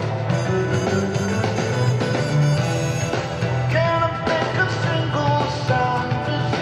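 Live rock band playing in an arena, recorded from the audience: drums, bass and keyboards, with a melody line held and bent above them from about four seconds in.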